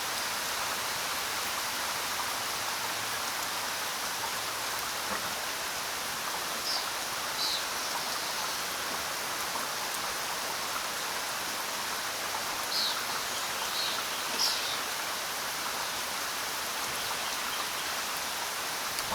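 Steady rain falling, an even hiss with no let-up. A few short, high, downward-sweeping bird chirps come through it in the middle stretch.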